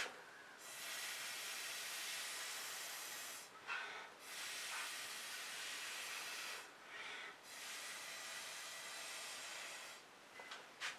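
Air blown across wet acrylic paint: a steady hiss in three long blows of about three seconds each, with short breaks between.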